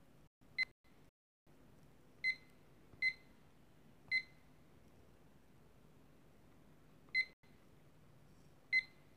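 Digital timer giving a short, high key-press beep each time a button is pressed: six single beeps at irregular intervals, over a faint low hum.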